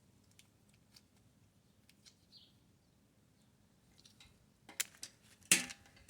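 Light metallic clicks and clinks of brake parts and tools being handled while a lubed caliper bracket bolt is fitted, with a few sharper clicks near the end, one much louder than the rest.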